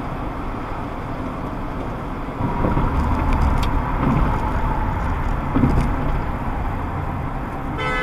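Road noise inside a moving car at highway speed: a steady tyre and engine rumble that grows louder about two and a half seconds in. A car horn begins right at the end.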